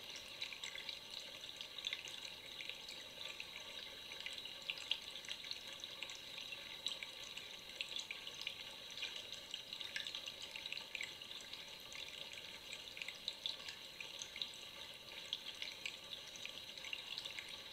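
Running water trickling and bubbling steadily, with a constant patter of small splashes and drips and no deep roar.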